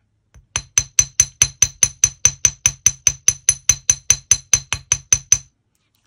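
Lightweight (about 3 oz) jewellery hammer tapping a 0.9 mm wire hook clasp on a steel bench block, about five quick light taps a second, each with a high metallic ring, work-hardening the wire. The tapping stops about half a second before the end.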